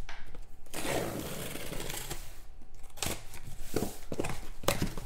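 Cardboard handling as a sealed trading-card case is opened: a scraping rustle about a second in, then a few light knocks and taps as a box is worked out of the case.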